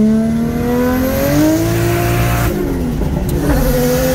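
Car engine heard from inside the cabin, revving up steadily as the car accelerates. About two and a half seconds in it cuts abruptly to a lower, steadier engine note.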